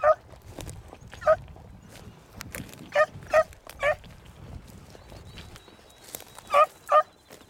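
Beagles baying on a rabbit's track: about seven short, ringing bays, one or two at a time with gaps of a second or more between them.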